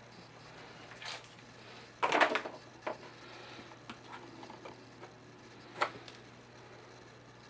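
A putty knife scraping and tapping on a board while working two-part epoxy paste: a few short scrapes and knocks, the loudest cluster about two seconds in and a sharp one near six seconds, over a faint steady low hum.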